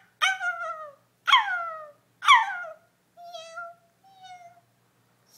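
A child imitating a cat: a run of high-pitched, meow-like cries that fall in pitch, the last two softer and shorter.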